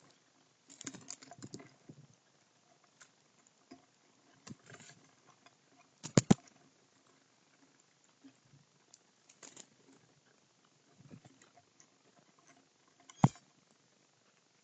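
Crows pecking and picking at mealworms and peanuts on a wooden platform feeder: irregular tapping and clicking of beaks, with a loud quick double knock about six seconds in and another sharp knock near the end.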